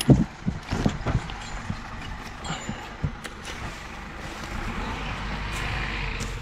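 Dry twigs snapping and leaf litter crunching underfoot, sharpest in the first second or so. A low engine runs steadily in the background and grows a little louder near the end.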